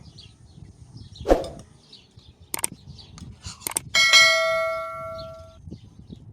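A metal object struck once, about four seconds in, ringing like a bell with several clashing pitches that fade over a second and a half. Before it comes a dull thump and two sharp clicks, with birds chirping faintly.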